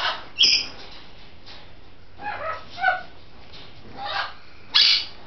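Blue-and-gold macaw giving a series of short, harsh squawks mixed with softer, lower chattering calls. The loudest squawks come about half a second in and near the end.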